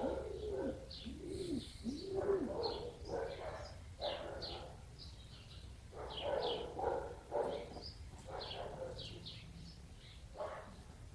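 Birds calling: many short, high chirps scattered throughout, with a run of lower, arching calls in the first two seconds or so.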